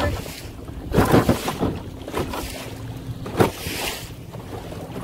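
Canoe riding choppy lake waves: water splashes and slaps against the hull, louder about a second in and again near three and a half seconds, over wind noise on the microphone.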